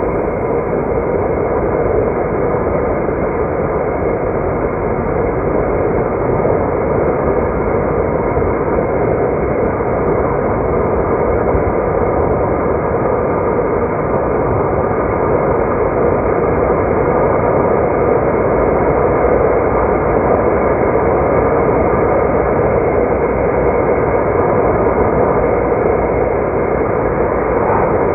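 Steady road and engine noise from a car being driven at a constant pace, heard as an even rumble and hiss.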